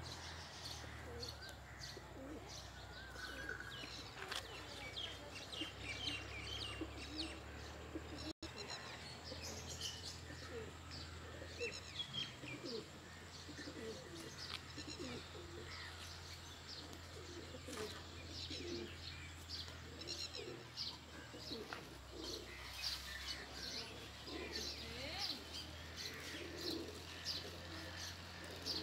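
Domestic pigeons cooing with low, repeated notes among many small birds chirping throughout, with a momentary break in the sound about eight seconds in.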